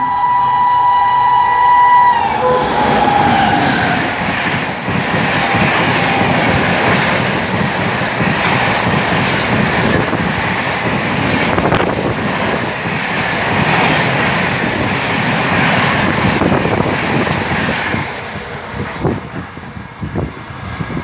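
Horn of a WAP7 electric locomotive sounding a steady chord for about two seconds, then cutting off, followed by the Rajdhani Express passing at about 130 km/h: the rush and clatter of its coaches over the rails for some fifteen seconds, dropping away near the end.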